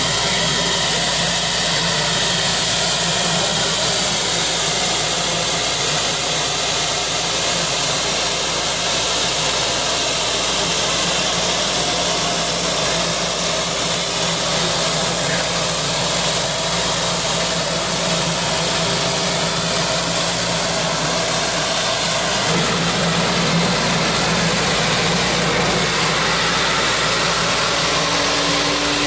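EcoJet concept car's helicopter-type gas turbine engine running, a steady rushing hiss with a thin high whine over it, as the car drives slowly.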